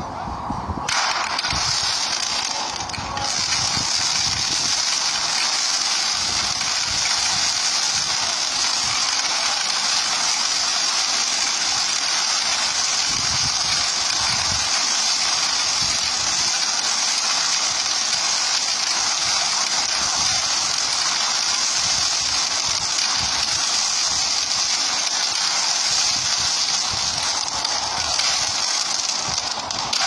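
Ground-launched fireworks burning and firing continuously: a loud, dense hiss of sparks peppered with fast crackling, starting about a second in and growing louder a couple of seconds later.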